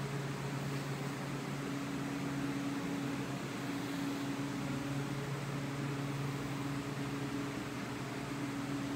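Steady hum and airy fan rush of a walk-in flower cooler's refrigeration unit, with a low drone that holds throughout.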